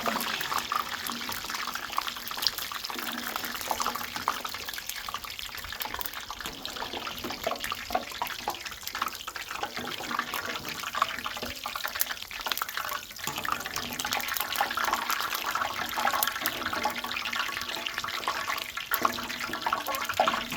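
Water running and splashing steadily, with scattered small knocks.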